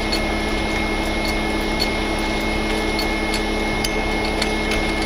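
Steady mechanical hum of the heavy wrecker running, with its hydraulic pump turning, and faint scattered clicks as a landing-gear leg is hand-cranked.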